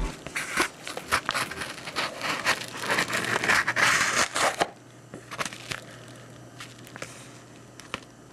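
Close handling noise: rustling and crinkling with many sharp clicks for about four and a half seconds, then fainter, with a few scattered clicks.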